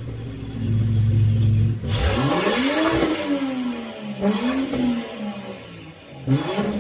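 Land Rover Range Rover Sport 3.0 engine through an aftermarket RES valved cat-back exhaust, idling steadily and then revved: one longer rev about two seconds in that rises and falls back, then two shorter blips.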